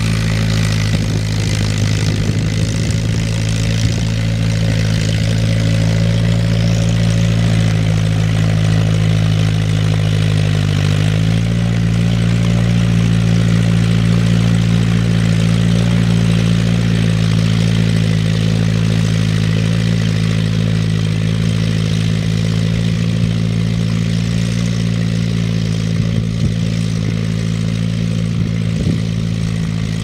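1952 Ferguson TE-A20 tractor's four-cylinder petrol engine running steadily under load while pulling a mounted plough through the soil. Its pitch dips briefly and recovers about a third of the way in, and it grows slightly fainter near the end as the tractor moves away.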